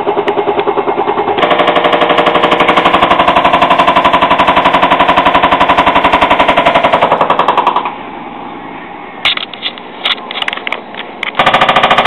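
Hotpoint washing machine on a fast spin, the drum knocking loudly in a rapid, even rhythm. It eases off to a lower level with a few clicks for a few seconds near the end, then the loud knocking returns. The knock on spin turns out to be the sign of failed drum bearings.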